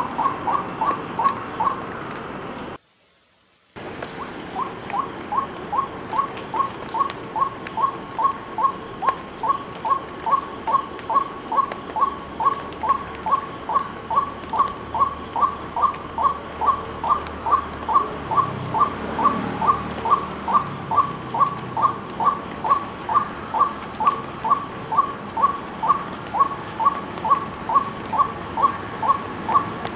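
White-breasted waterhen calling: short notes repeated steadily, about two a second, in one long monotonous series. The sound cuts out for about a second near three seconds in.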